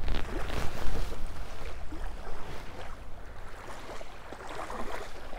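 Wind buffeting the microphone with a steady low rumble, over small waves lapping and splashing at the water's edge.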